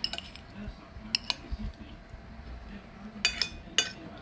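Metal spoon clinking and scraping against a plate: a sharp clink at the start, two more a little after a second in, and a quick cluster of clinks near the end.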